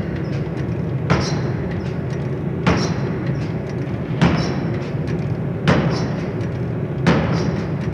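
Heavy forging hammer striking blow after blow, five heavy impacts about one and a half seconds apart, over the steady low hum of the running machinery with light clanks between the blows.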